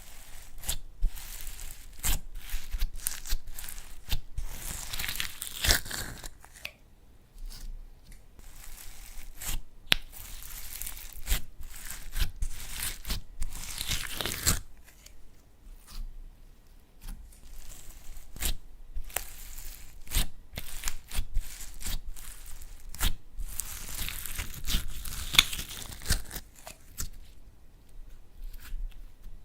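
Slime being squished and stretched by hand: irregular sticky crackles, pops and clicks, with a few longer crackling stretches.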